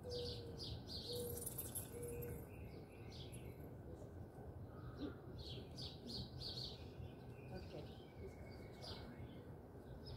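Small birds chirping again and again, with three short low hooting notes in the first two seconds, over a faint steady low hum of outdoor background noise.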